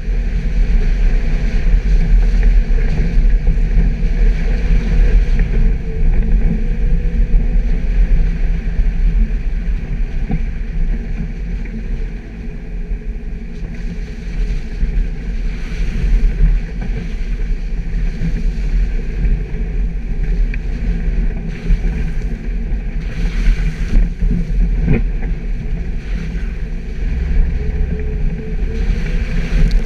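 Suzuki Jimny driving off-road: a steady, loud low rumble of engine and drivetrain, with a single sharp knock about twenty-five seconds in.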